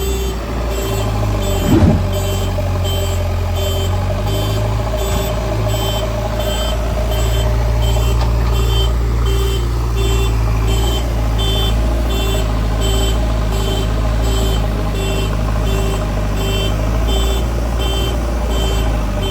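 A JCB 3DX backhoe loader's reversing alarm beeps steadily about twice a second over the steady hum of its running engine. A single short thud comes about two seconds in.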